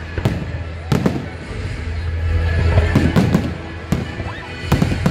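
Fireworks display: aerial shells bursting in a series of sharp bangs, several close together around the middle and two near the end, over steady background music.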